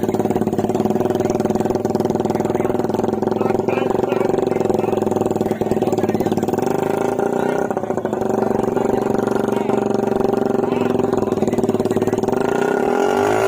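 Suzuki Raider 150 carburettor model's single-cylinder engine running steadily through a loud exhaust, the revs rising near the end.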